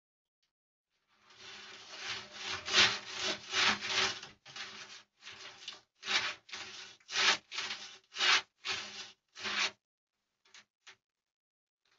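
Bell's phase lace monitor scraping its body along a wooden log while scent marking: a run of rough rubbing strokes, about two a second, then two faint ones near the end.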